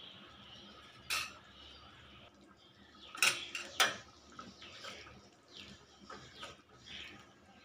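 Metal ladle clinking and knocking against a steel kadai while a curry is stirred: one sharp knock about a second in, two more close together between three and four seconds in, and lighter clinks after that.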